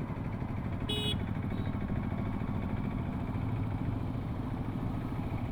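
A vehicle engine idling steadily, a low even rumble, with a short high beep about a second in.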